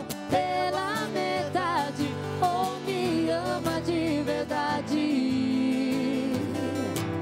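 A live acoustic love song: a voice singing a melody with vibrato over strummed acoustic guitar.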